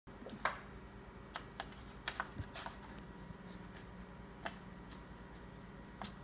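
Scattered light taps and clicks of kittens' paws and claws batting a cardboard cereal box and skittering on a hardwood floor, the sharpest about half a second in and a quick cluster around two seconds, over a faint steady hum.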